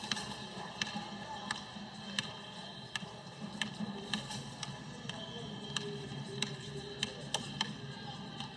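A basketball being dribbled on a hardwood gym floor, with a sharp bounce about every three-quarters of a second, over background music.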